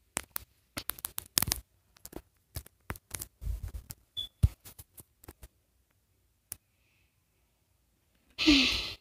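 A quick run of small clicks, taps and rustles from objects being handled, thinning out after about five seconds, then a single louder short rustling burst near the end.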